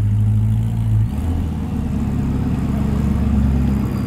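Car engine idling: a steady low hum that shifts to a lower, rougher note about a second in.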